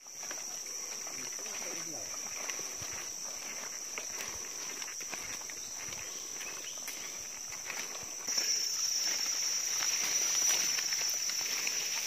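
High-pitched steady drone of forest insects, which grows louder about eight seconds in, over footsteps and the rustle of walkers brushing through undergrowth.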